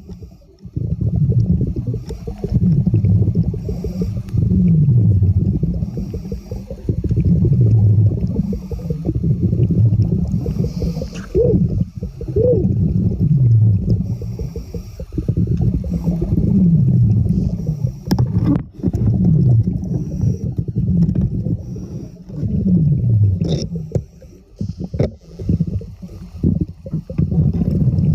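Low, rumbling water noise in repeated surges every couple of seconds, with short falling-pitch gurgles and a few sharp clicks: underwater sound of a scuba diver breathing, exhaled bubbles rushing past the microphone.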